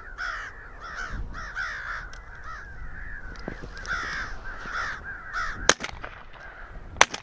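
Crows cawing fast and without a break from the electronic crow call and the circling crows, then two sharp shotgun shots about a second apart near the end.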